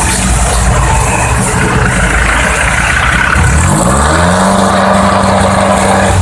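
Motor vehicle engine running close by; about three and a half seconds in its pitch rises, then holds steady at the higher speed.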